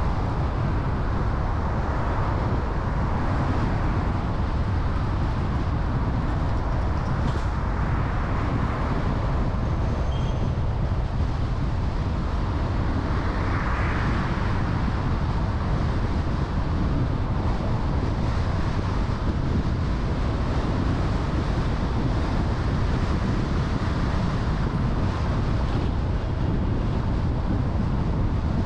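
Steady outdoor background noise with a constant low rumble and no distinct events, swelling briefly about halfway through.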